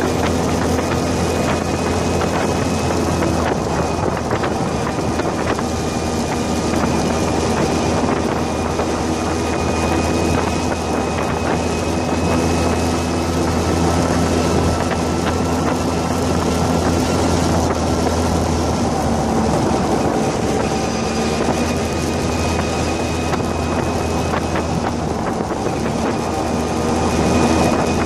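Go-kart's small engine running steadily at cruising speed, heard close up with loud road and wind noise.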